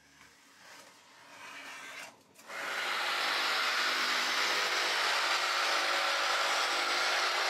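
Faint scraping at first, then about two and a half seconds in an electric jigsaw starts cutting through pink extruded polystyrene foam board with a steady, loud buzzing rasp.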